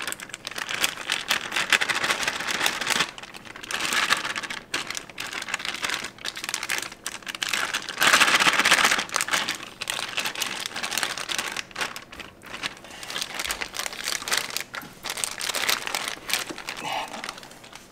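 A plastic zip-lock freezer bag crinkling and rustling as it is squeezed and shaken to empty out mashed blackberries, in irregular spells, loudest about eight seconds in.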